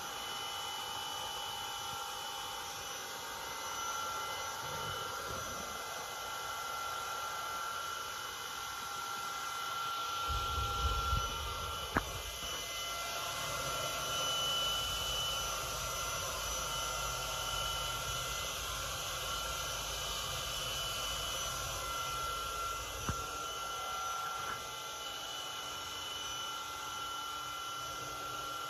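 Steady hum of a powered-up vertical machining center, with a few held high whining tones. A low rumble comes in about ten seconds in, with a sharp click a couple of seconds later.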